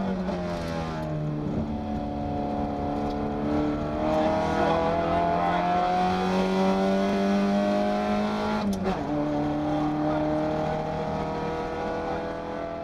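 Isuzu Gemini rally car's four-cylinder engine pulling hard under load, its pitch climbing slowly. The pitch drops about a second in and again near nine seconds, the second time with a sharp click: gear changes.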